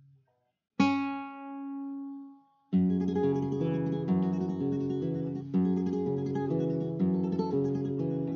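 Classical nylon-string guitar: a single chord rings out and fades about a second in, then a steady, evenly paced picked pattern starts near the middle and carries on.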